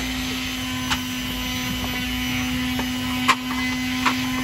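Large wooden bowls being handled, knocking against each other three times with a short hollow ring, the loudest knock a little past the middle. Under it runs a steady machine hum.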